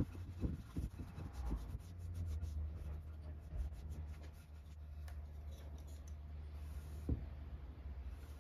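Paintbrush bristles stroking oil onto a bare oak board, a run of light scratchy brushing strokes in the first few seconds over a steady low hum. A single light knock comes about seven seconds in.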